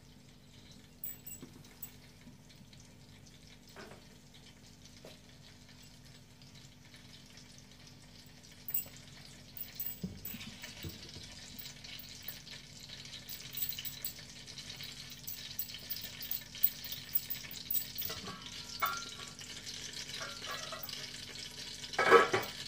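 Cooking oil heating in a large aluminium pot, a faint sizzle and crackle that builds from about eight seconds in as the oil gets hot. Near the end comes a sharp metallic clank as the pot's lid is lifted off.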